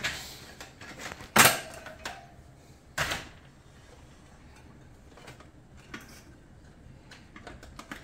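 Metal tools knocking against a motorcycle wheel on a tire-changing stand: two sharp clanks about a second and a half apart, the first ringing briefly, then a few faint small knocks as the steel tire irons and rim are handled.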